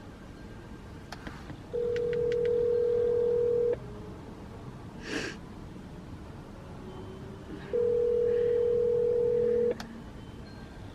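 Phone ringback tone on speaker: two steady rings, each about two seconds long with about four seconds between them, as the outgoing call rings unanswered. A brief rustle comes about five seconds in.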